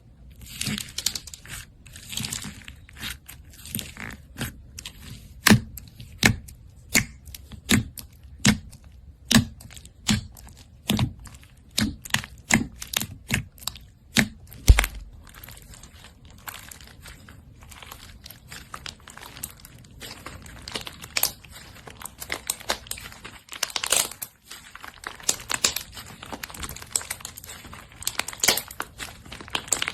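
Slime being squished and pulled by hand: a run of sharp, sticky pops, roughly one or two a second, through the first half, then denser, softer crackling and crinkling.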